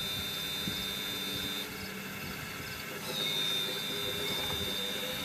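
1/12-scale RC Cat 345D hydraulic excavator running, with a steady high whine from its hydraulic pump and drive. The whine breaks off for about a second near the middle, then comes back a little louder as the machine moves again.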